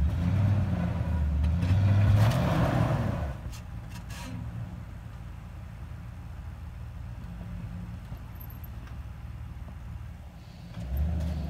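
Pickup truck engine revving hard as the truck tries to drive out of snow onto traction boards, with a rush of noise about two seconds in, then running more steadily before revving again near the end.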